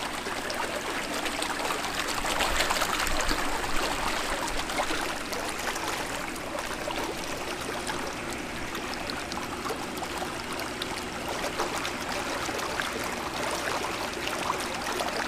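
Hot tub jets running, a steady rush and churn of water driven by the spa's jet pump. The pump is working normally on a newly replaced Balboa control board.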